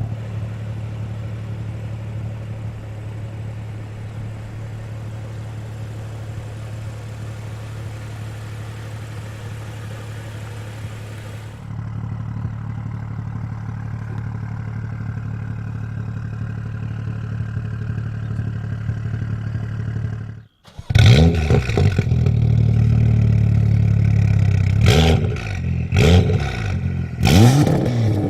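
BMW M2 with an Fi valved exhaust idling steadily. After a brief cut it is revved hard in repeated blips, pitch rising and falling, with sharp exhaust pops and crackles on the lift-off.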